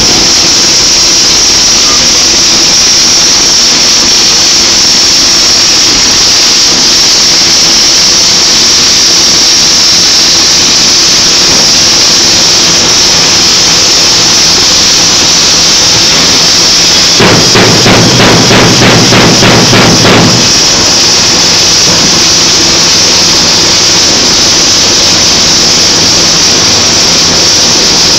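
CRC-Evans automatic pipeline welding bug running on a pipe girth weld: a loud, steady arc hiss over a low machinery hum. About two-thirds of the way through comes a burst of rapid knocking, about four a second, for some three seconds.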